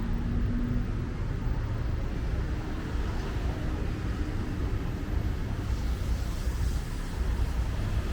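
Road traffic on a busy city avenue: a steady low rumble of car and motorbike engines and tyres passing by.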